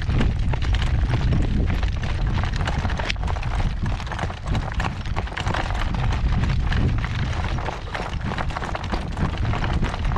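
Newly shod horse's hooves clip-clopping at a steady walk on a caliche gravel road, over a steady low rumble.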